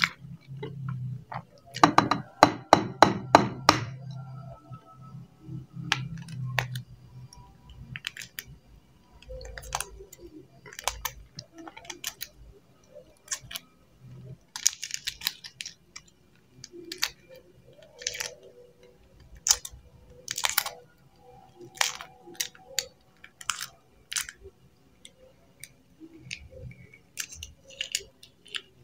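Soft-boiled free-range chicken egg being cracked and peeled by hand: scattered small cracks and crackles of eggshell, with a quick run of about seven sharp clicks a couple of seconds in.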